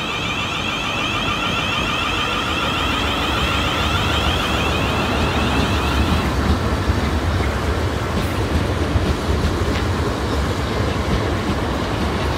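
Class 450 Desiro electric multiple unit pulling away, its traction equipment giving a whine that fades about halfway through. Then the low rumble of its wheels on the track, with a few clicks over rail joints.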